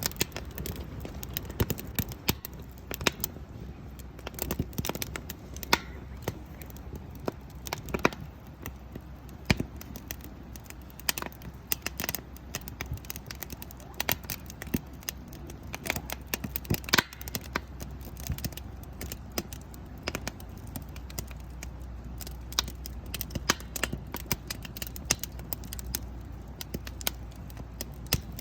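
Firewood crackling and popping as it burns in a campfire pit, with irregular sharp snaps over a low steady rumble.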